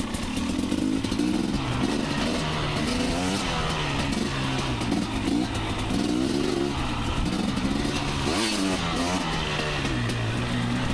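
Two-stroke dirt bike engine being ridden, its pitch climbing and dropping over and over as the throttle is opened and closed through the gears.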